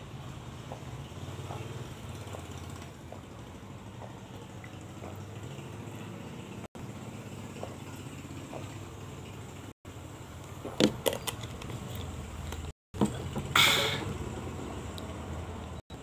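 A person drinking from a plastic bottle: faint gulps over a steady low hum, then a cluster of sharp clicks about eleven seconds in and a short loud rush of noise a couple of seconds later.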